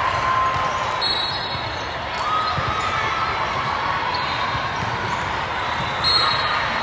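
Din of a large sports hall full of volleyball games: volleyballs being struck and bouncing, heard as a few faint thumps over a steady haze of distant voices.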